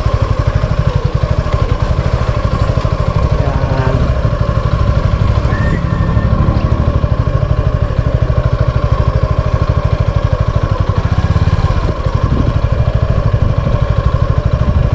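Motorcycle engine running steadily with an even, rapid low pulsing.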